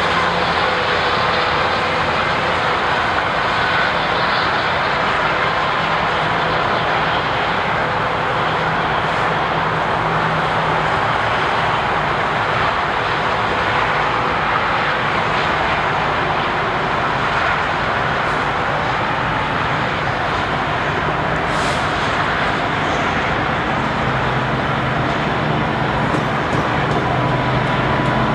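A freight train led by an EMD SD70ACu diesel-electric locomotive running by: a steady rumbling roar with a low engine hum that grows stronger near the end.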